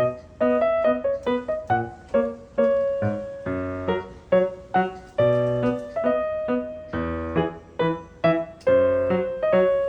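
Background music: a light piano tune, single notes struck in a bouncy rhythm, a few a second.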